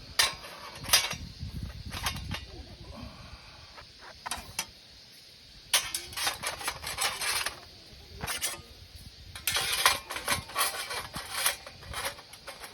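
Metal parts of a fire-pit stand being fitted together by hand: sharp clinks and clatters in scattered clusters, with short rattling runs about halfway through and again near the end.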